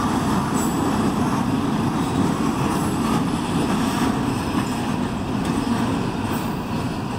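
Freight train boxcars rolling past on the rails, a steady rumble of steel wheels on track with a few faint clicks, easing off slightly as the last car goes by.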